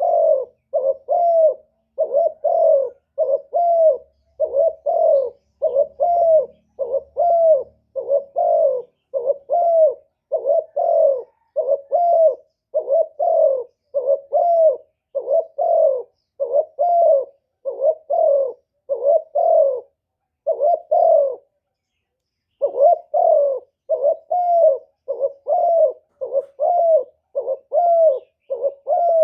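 Spotted dove (cu gáy) cooing over and over, a steady string of short coos with one brief break about two-thirds of the way through. It is a lure call used to provoke wild doves.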